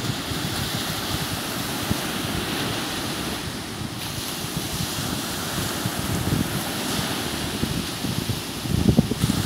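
Sea waves breaking and washing up a sandy shore, a steady surf wash, with wind buffeting the microphone in a low rumble that grows stronger near the end.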